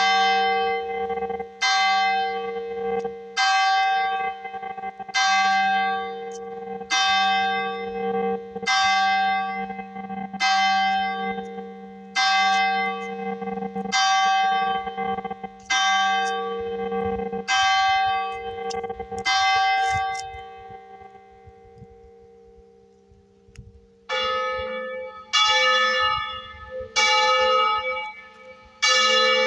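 Church bells of a three-bell tower cast in 1926: the big bell, tuned to G, tolls roughly once a second and then dies away. A few seconds later the middle bell, tuned to A, starts ringing with a higher, brighter tone, its strokes a little over a second apart.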